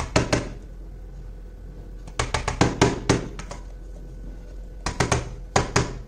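Plastic bottle of chalk paint tapped and knocked against a plastic paint palette as paint is put out, in three short bursts of sharp clicks about two and a half seconds apart.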